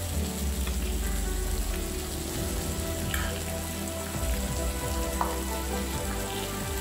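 Meat and mushroom slices sizzling steadily on a hot electric grill plate.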